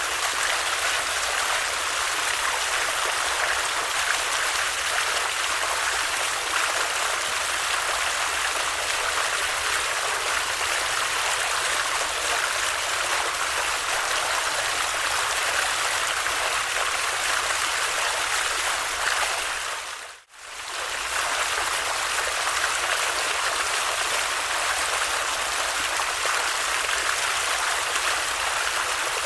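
Water stream flowing steadily. About twenty seconds in, the sound briefly fades out and back in.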